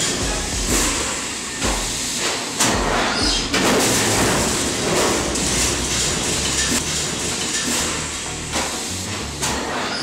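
Automated sheet-metal press line running: a steady mechanical clatter with repeated knocks and a hiss as the transfer tooling moves stamped body panels.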